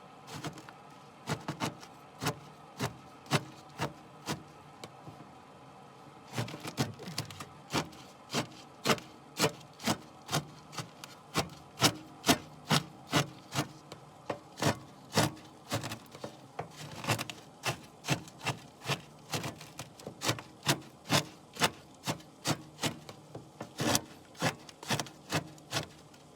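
A utensil scraping and knocking inside a plastic Pot Noodle pot as the noodles are stirred and mashed: a run of sharp clicks, about two a second, with a short pause about five seconds in.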